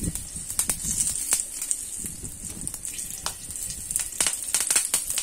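Hot oil sizzling in a pan, with mustard seeds crackling and popping in many sharp clicks as fresh curry leaves are dropped in and splutter.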